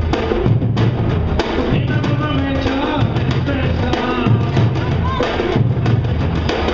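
Samba-reggae drumming by a bloco afro percussion group: deep surdo bass drums keep a steady repeating beat, with stick-played repenique strokes on top. A man sings over it through a microphone and PA.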